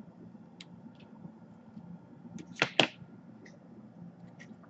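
Two quick sharp knocks close together a little past halfway, from hands handling tools and a laptop motherboard on a workbench, with a few faint ticks and a low steady hum underneath.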